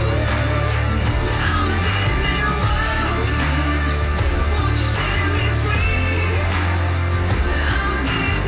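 Alternative rock music: a heavy, steady beat of drums and bass under a melodic line.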